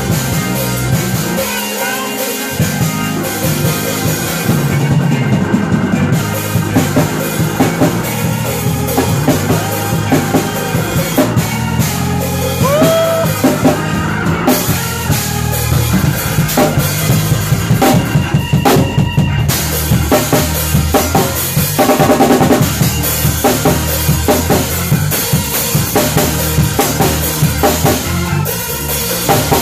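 Live band jamming, with the drum kit out front (kick drum, snare and rimshots) over sustained bass and organ parts.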